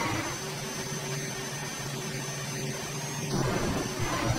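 Simulated truck engine in a driving game, droning steadily under a hiss with a thin high whine, turning rougher and louder near the end as the truck tumbles.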